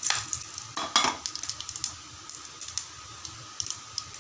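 Aluminium pressure cooker knocking against the gas stove's pan support twice, about a second apart, as it is shifted on the burner, followed by scattered light ticks and crackles of whole spices in the hot oil.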